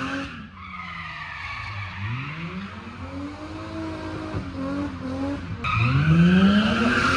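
A car's engine revving up and down several times under hard driving, with its tyres squealing briefly at the start and then a long, loud tyre squeal from about five and a half seconds in as the car slides round the course.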